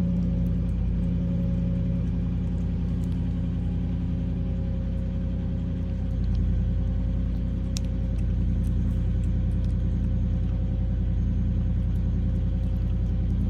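A car engine idling steadily, an even low hum that holds one pitch.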